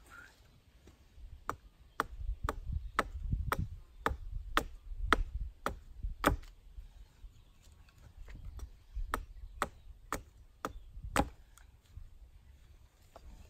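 An axe chopping wood by hand: a steady run of sharp blows, about two a second, that stops shortly before the end, with one lighter knock after the pause.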